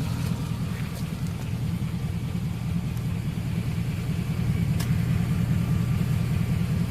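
2003 Chevy Avalanche's V8 engine idling: a steady, even low rumble.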